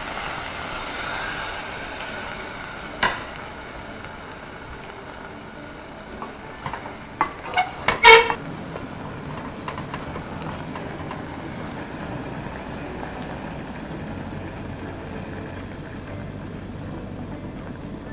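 Water poured into a hot enamel pot of pork sizzles and hisses at first, then settles to a quieter simmering hiss. Knocks and clinks of a utensil against the pot come about 3 seconds in and again from about 6 to 8 seconds in, the loudest a short ringing clang about 8 seconds in.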